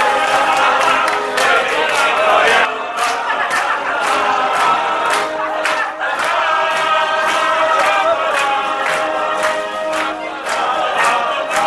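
A group of voices singing together to a steady beat of sharp hits, about two to three a second.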